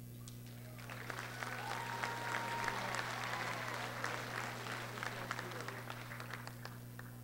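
Crowd applauding lightly, starting about a second in and tapering off near the end.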